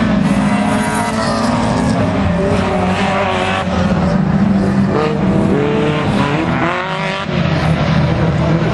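Folcar race cars' engines revving hard as a pack laps the circuit, several engines at once with pitch rising and falling through gear changes, loudness dipping briefly near the end.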